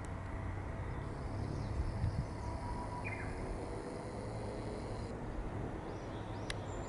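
Outdoor ambience: a steady low rumble with a few short bird chirps, and a thin high hiss for a few seconds in the middle. A single sharp click near the end.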